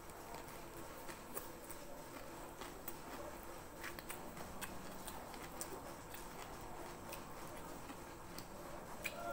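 Close-up eating sounds: a mouthful of rice and fried chicken being chewed, with scattered sharp, irregular mouth clicks and smacks.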